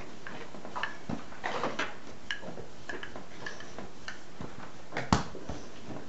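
Wooden rolling pin rolling out dough on a wooden tabletop: scattered light knocks and clicks as the pin moves and is set down, with a louder knock about five seconds in.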